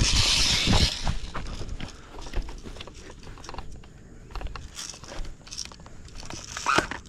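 Footsteps crunching and rustling over dry backyard ground, loudest in the first second, then scattered sharp crunches and clicks as the player moves.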